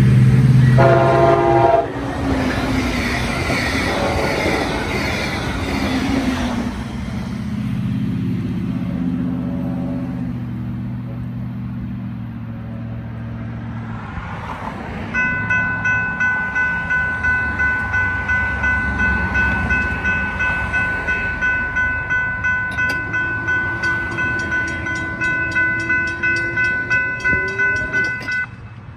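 Brightline passenger train sounds a short horn blast in the first two seconds and rushes through the crossing at speed, its noise fading away over the next ten seconds or so. From about halfway through, the crossing's warning bell rings steadily about twice a second, stopping just before the end.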